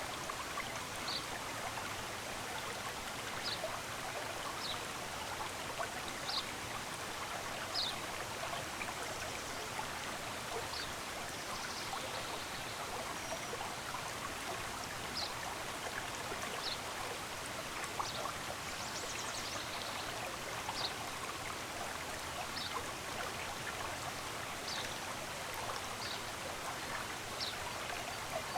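Steady rush of a flowing stream, with a small bird giving short, high single chirps every one to three seconds.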